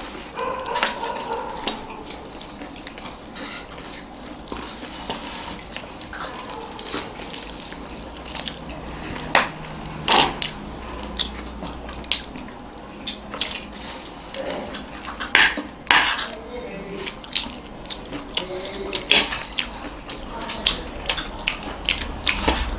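Spoons clinking and scraping on plates of papadi chaat and samosa while eating, in scattered sharp clicks, a few louder strikes standing out.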